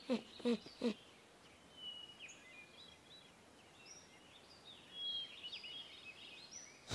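Cartoon forest ambience of faint scattered bird chirps and short whistles. It opens with a quick run of short falling-pitch notes, about three a second, that stops about a second in.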